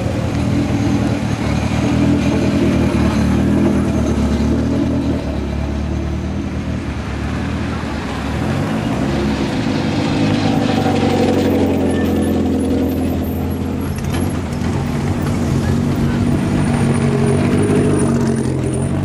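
Racing cars passing one after another at low speed, their engines running at low revs, with a different engine note taking over about halfway through.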